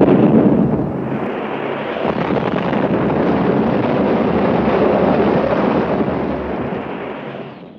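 Bomb explosions rumbling as a continuous loud roar, strongest in the first second and fading out near the end.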